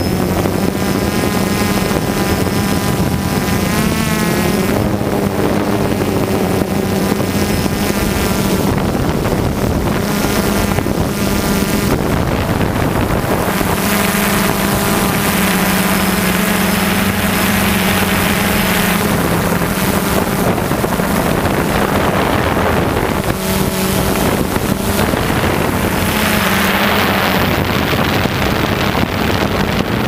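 DJI Phantom 2 quadcopter's propellers buzzing steadily, heard from the GoPro on board, with wind rushing over the microphone. The hum drifts up and down in pitch as the motors change speed.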